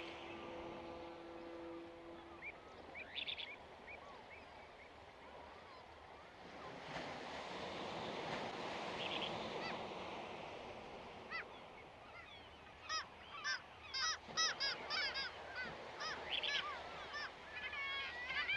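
Birds calling outdoors, short squawking calls coming thick and fast through the second half. A steady two-note tone fades out about two seconds in.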